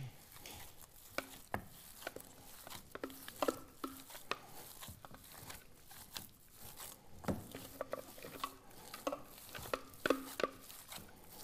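Kibbeh dough being kneaded by hand and stirred with a wooden spoon in a stainless steel mixing bowl: soft squelching, with scattered scrapes and knocks of the spoon against the bowl, some with a brief ring from the metal.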